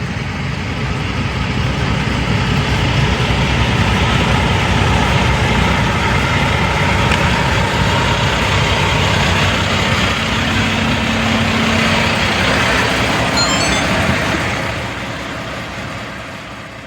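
Idling semi trucks: a steady diesel rumble under a broad rushing noise, fading out near the end.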